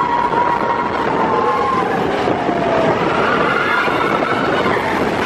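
Expedition Everest roller coaster train running along its track: a steady, loud rumble, with a drawn-out high squeal that falls slowly in pitch over the first few seconds.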